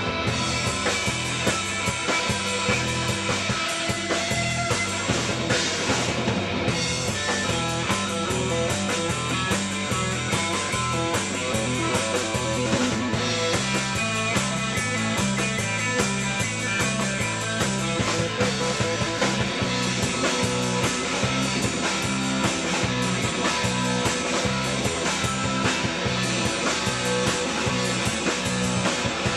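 Live rock band playing, with electric guitar and a steady drum beat.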